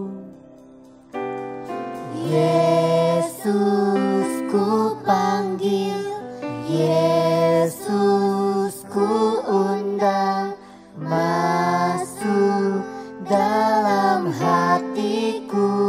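Christian worship song in Indonesian: voices singing over instrumental accompaniment. The singing comes in about a second in, after a brief lull.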